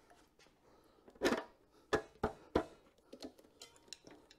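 A handful of sharp metal clicks and knocks, four loud ones through the middle and fainter ticks after: a mounting bolt being pushed through a motorcycle fuel tank's front mount and its hardware handled.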